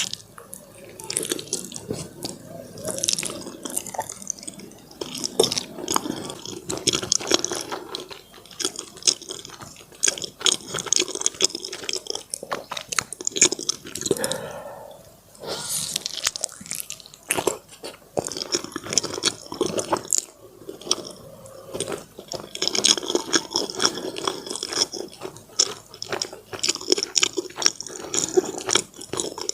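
Close-up eating sounds of soft, sticky food: wet chewing and lip-smacking, made up of many small clicks that come thick and fast in stretches, with brief lulls.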